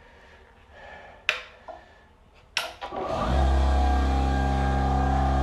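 Two sharp clicks, then a Milwaukee M18 cordless air compressor's motor starts about three seconds in and runs steadily, pumping air into the plumbing for a pressure test.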